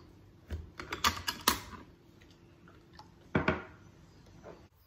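Bench bottle capper crimping a crown seal onto a glass beer bottle: a quick string of sharp metallic clicks and clacks about a second in, then a single louder knock about three and a half seconds in.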